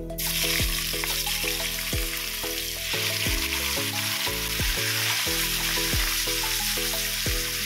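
Turmeric-marinated beef hitting very hot oil in a wok and sizzling, the hiss starting at once as the meat goes in and holding steady while a spatula stirs it. Background music with a steady beat plays underneath.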